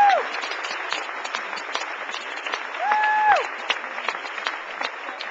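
Audience applauding, a dense patter of many hands clapping. About three seconds in, a short high held note sounds and slides down at its end.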